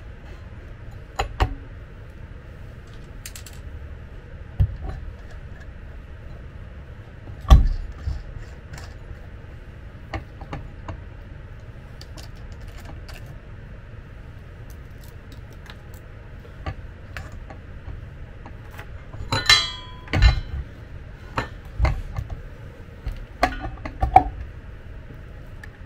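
Scattered metallic clinks, taps and knocks from a hub-motor wheel and hand tools being handled on a workbench, over a faint steady hiss. The loudest knock comes about seven and a half seconds in, and a denser run of clinks and knocks comes near the end.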